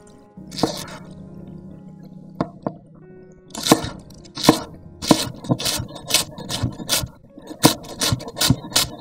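Chef's knife chopping a scallion on a wooden cutting board. A few single cuts come first, then from about three and a half seconds in, steady chops roughly two a second that quicken slightly near the end.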